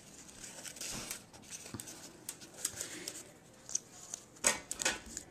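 Die-cut paper flowers and a string of mini lights being handled: soft rustling of the paper and small clicks and taps, with a louder cluster of rustles and taps about four and a half seconds in.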